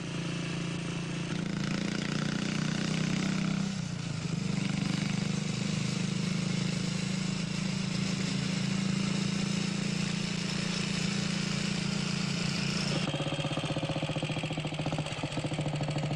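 Small motorcycle engine running at steady road speed, its note changing abruptly about four seconds in and again about two-thirds of the way through.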